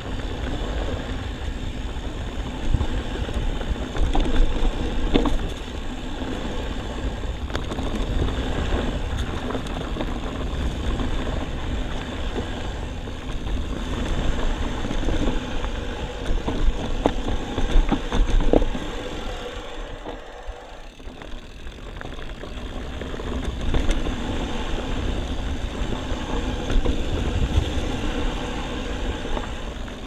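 Mountain bike moving down a dirt trail: steady wind on the microphone and tyre rumble, with frequent rattles and clicks from the bike. It quiets briefly about 20 seconds in.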